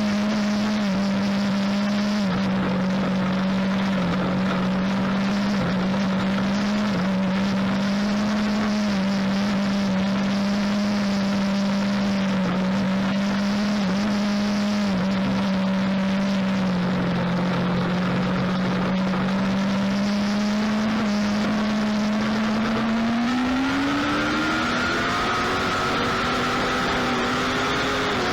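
A lightning sprint race car's engine running at steady high revs, its pitch wavering a little, then rising smoothly about three-quarters of the way through.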